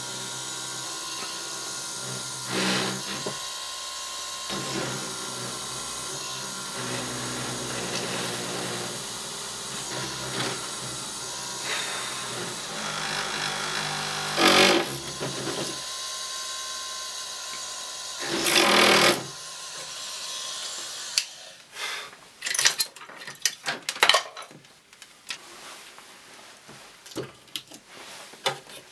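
Small electric power tool running steadily for about twenty seconds, with a few louder short bursts. It then stops, followed by a run of sharp clicks and knocks.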